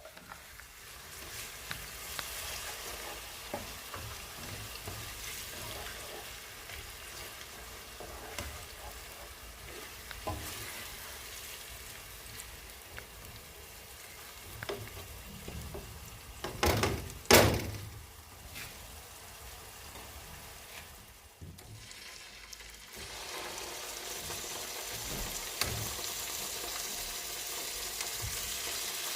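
Food sizzling in a frying pan as it is stirred, with scattered small clicks. Two louder knocks come just past the middle; the sizzle dips briefly a few seconds later, then returns louder.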